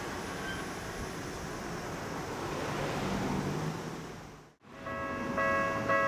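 Running noise of a commuter train on the Tokyu Toyoko Line fades away as the crossing clears. After a short break about four and a half seconds in, the Japanese level crossing's electronic warning bell starts, ringing a two-tone 'kan-kan' about twice a second.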